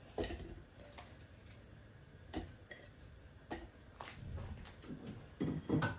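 A few light clicks and knocks of kitchen items being handled on a counter, spaced about a second apart, with a louder cluster of knocks near the end.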